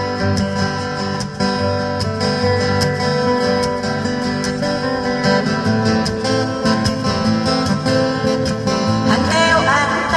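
Instrumental break of a Korean trot song, acoustic guitar strumming prominent over a steady accompaniment. A singer's voice comes back in near the end.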